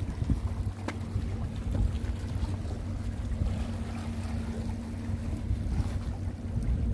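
Wind buffeting the microphone at the seaside, a low rumble, with a steady low hum underneath and a faint click about a second in.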